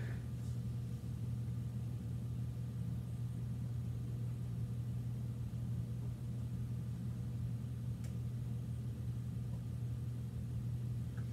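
Steady low hum of room tone, with one faint click about eight seconds in.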